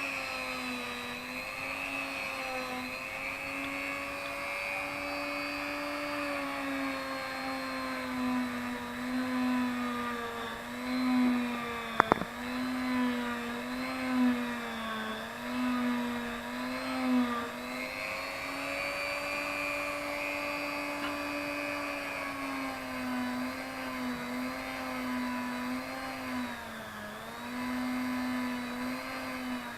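Small electric motor spinning a felt polishing wheel with GOI paste against a baitcasting reel's line-guide eye; a steady whine whose pitch wavers and dips now and then. One sharp click about twelve seconds in.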